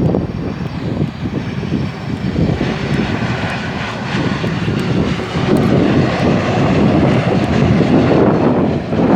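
Jet airliner's engines heard as it passes the airfield: a rumble with a whine that builds from about two and a half seconds in and is loudest in the second half. Strong wind buffets the microphone throughout.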